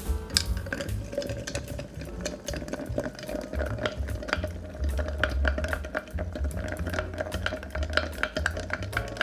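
Bar spoon stirring ice cubes in a stemmed glass: a continuous run of rapid light clinks of ice against glass as a cocktail is stirred to chill it.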